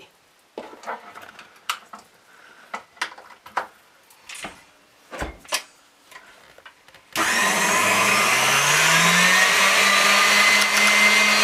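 Light clicks and knocks, then about seven seconds in a KitchenAid stand mixer switches on: its motor whine rises for a couple of seconds as it comes up to speed, then runs steadily as the wire whisk beats egg yolks and sugar.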